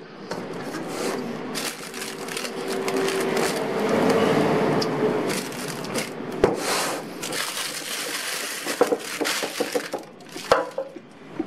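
Spatula scraping thick topping batter out of a stainless steel bowl and pushing it into a plastic piping bag: continuous scraping and squelching with the bag rustling, and a couple of sharper knocks, the last near the end.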